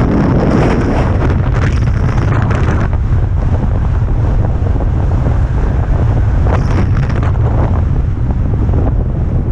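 Strong wind buffeting the microphone in a constant low rumble, with louder hissing rushes over the first few seconds and again briefly about seven seconds in.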